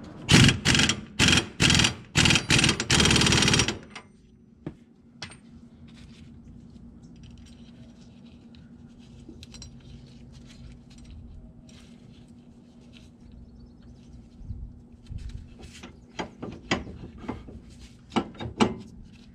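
Impact wrench hammering the 32 mm front axle nut tight on the hub, in several short bursts and then one longer run of about a second, stopping about four seconds in. After that, light metallic clicks and knocks of hand work at the hub.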